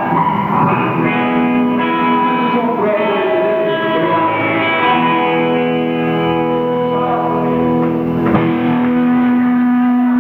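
Rock band playing live, electric guitars sounding sustained, ringing notes and chords, with a single sharp hit about eight seconds in.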